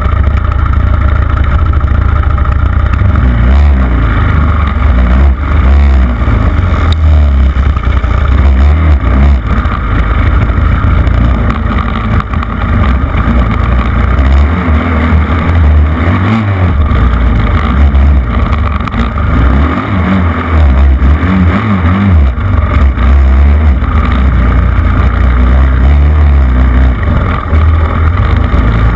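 Engine of an off-road vehicle running under way, heard from a handlebar-mounted camera, with heavy wind buffeting on the microphone; the low rumble comes and goes unevenly.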